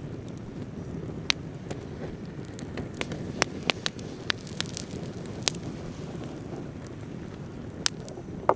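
Wood campfire crackling: scattered sharp pops over a steady low rush.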